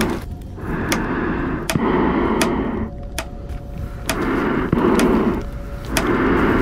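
Heavy breathing through a respirator mask, a rhythm of long breaths in and out with short pauses between them, with a few scattered sharp ticks over it.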